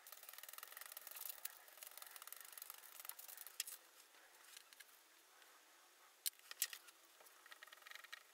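Faint rustling and light handling of thin sapele strips being laid and stacked on the workbench, with a few light clicks, two of them close together a little after halfway.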